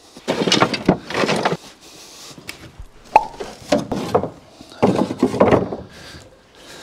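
Wooden boards knocking and clattering against each other as they are shifted and pulled from a stack, in three bunches of knocks.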